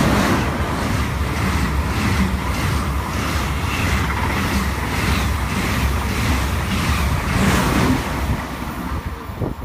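An ICE high-speed train runs through the station at speed close by, making a loud rushing, rolling noise over a deep rumble. A faint pulse comes about twice a second as each car goes by, and the sound fades near the end as the rear power car passes.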